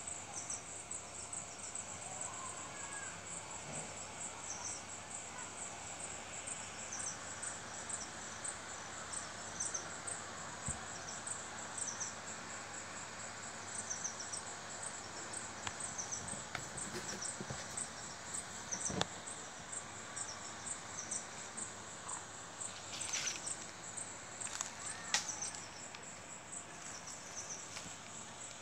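Insects calling steadily: a high, fast and even pulsing, with a second, slightly lower chirp repeating every second or two. A few sharp clicks stand out in the second half.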